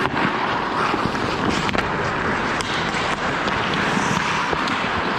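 Ice hockey play close by: skate blades scraping and carving on the ice, with several sharp clacks of sticks and puck.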